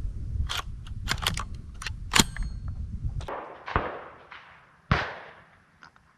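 A quick run of sharp clicks and rattles, then two shotgun shots about a second apart, each trailing off in a rolling echo.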